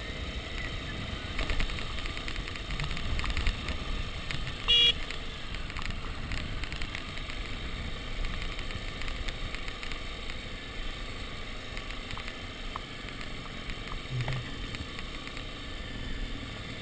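Dirt bike riding downhill, heard from a chest-mounted camera: a steady mix of engine, wind and road noise. About five seconds in, one short, loud horn beep.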